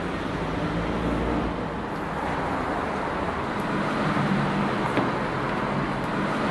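Steady rushing noise with a faint low hum and a few light clicks.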